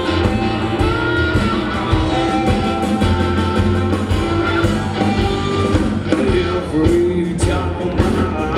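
Live blues band playing: electric guitar over bass guitar and drums.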